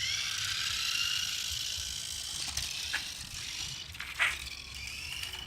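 Small electric motor and gears of a toy remote-control car whining as it takes off, rising in pitch at the start and then running on with small changes in pitch as it is driven. A brief sharp sound about four seconds in.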